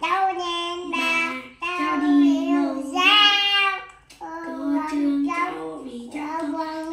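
A child singing a song, a run of held, sliding notes in short phrases with brief breaths between them.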